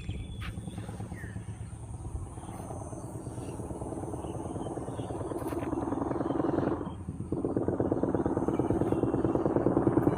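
Old Royal Enfield Bullet's single-cylinder engine running with its exhaust thump, growing louder over several seconds, dipping briefly about seven seconds in, then coming back louder.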